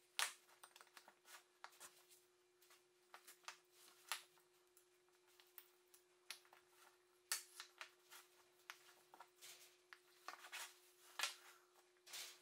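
Small wooden pen boxes being handled and set down on a workbench: scattered light wooden taps and clicks, the sharpest just after the start and near the end, over a faint steady hum.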